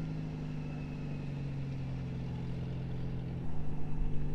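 Geo Tracker's engine running steadily under load while towing a camper trailer. Its note drops slightly about a second in and steps back up near the end, where a louder low rumble joins.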